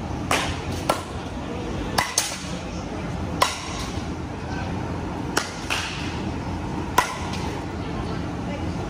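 Softball bat hitting balls: a sharp crack every second or two, some close together, over the steady din of a busy batting cage.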